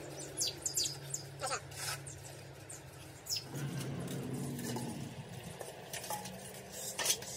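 Scattered light metallic clicks and taps from tools and parts being handled during truck differential repair, over a steady low hum.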